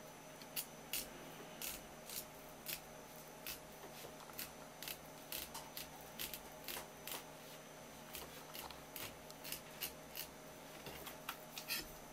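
Kitchen knife cutting a raw pike conger (hamo) fillet lengthwise on a wooden cutting board: a string of short, crisp cuts and taps at an uneven pace, roughly two a second.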